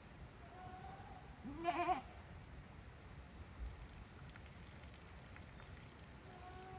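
A goat bleating once, a short wavering call about a second and a half in, with fainter, steadier calls just before it and near the end.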